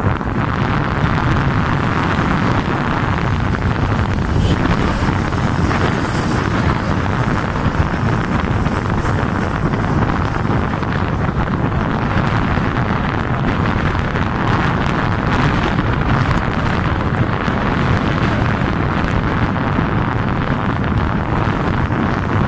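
Steady wind buffeting the microphone of a moving vehicle, with engine and road noise underneath.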